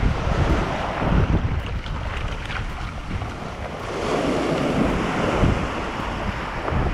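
Wind buffeting a kayak-mounted camera microphone over small waves washing in the shallows. About halfway through, a rougher scraping joins in as the plastic kayak hull is dragged up onto the sand.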